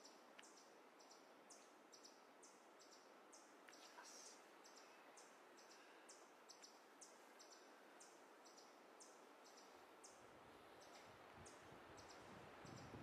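Quiet forest ambience: a faint high chirp repeats evenly about three times a second over a soft background hiss. A low rumble comes in near the end.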